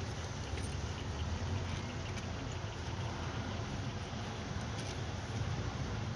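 Steady low mechanical rumble with a few faint light clicks.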